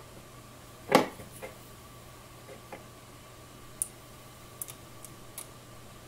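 A hand tool and a SATA cable connector knocking and clicking against a Western Digital Blue hard drive as the cable is pressed onto its broken SATA port: one sharp knock about a second in, then several light clicks, over a faint steady hum.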